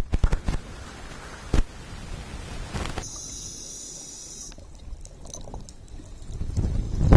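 Water slapping and splashing against an underwater camera housing at the surface as a scuba diver back-rolls off a boat into the sea, with a few knocks. Then muffled underwater noise, with bubbling and knocks growing louder near the end.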